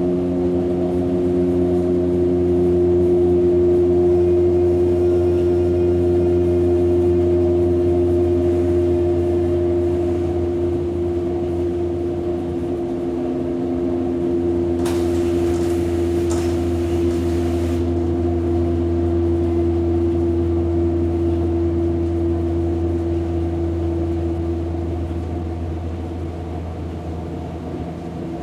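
Hamburg DT5 U-Bahn train's traction motors and drive humming loudly and steadily in several low tones, with a faint high whistle over them in the first half, a hum the uploader puts down to worn motors. A brief hiss breaks in about 15 seconds in.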